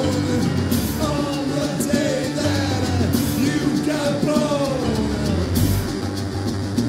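Rock song playing: a full band with drums, a crash about every two and a half seconds, and sliding melodic lines over the top.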